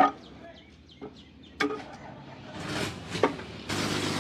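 Sharp metal knocks and clanks of steel gearbox parts being handled as a ZF truck gearbox is taken apart, a few separate strikes. Faint bird chirps sound between the first strikes. Near the end a steady background hum sets in.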